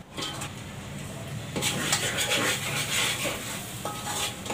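A metal ladle stirs and scrapes spice masala frying in oil in a metal pot, with a light sizzle. The scraping strokes are strongest in the middle, and a short ringing clink of metal on metal comes near the end.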